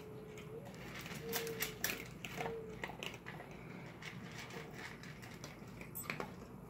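Dog eating dry kibble from a metal pan: irregular crunching and sharp clicks of kibble against the tin, busiest between about one and three seconds in, with a few more near the end.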